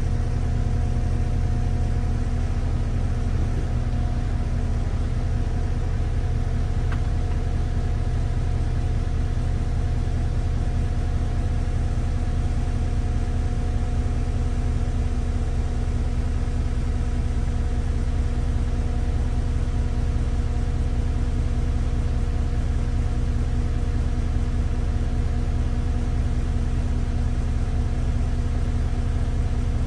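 Bus running, heard from inside: a steady low hum with a few constant tones and no change in pitch.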